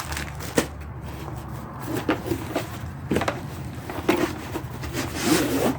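Handling noise from a rivet nut tool kit and its case: a series of light knocks, clicks and rubbing of hard parts being moved about, over a steady low hum.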